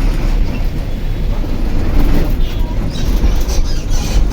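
Train running: a loud, steady low rumble with some rattling noise over it.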